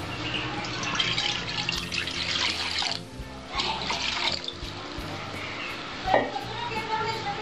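Water running into a metal kadai (wok) as it is filled for boiling, with a short break about three seconds in.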